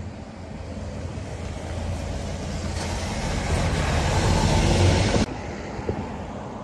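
An engine running with a steady low hum. A rushing noise builds over the engine for a couple of seconds, then cuts off abruptly.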